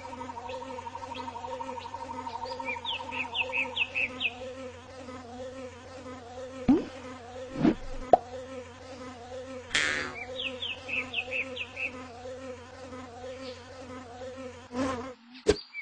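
A fly buzzing steadily, the buzz cutting off shortly before the end, with birds chirping in the background.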